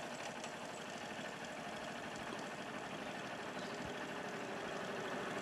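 A motor vehicle engine idling steadily.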